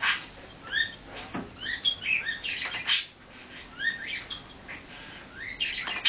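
Budgerigar chattering: a run of short rising chirps and warbles, with sharp, louder calls at the start and about three seconds in.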